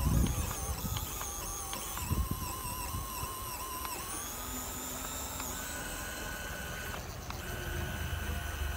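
Small electric motor whining as it spins a toy drilling rig's bolt auger into sand. The whine wavers in pitch, steps higher about four seconds in and again a little later, and breaks briefly near the end.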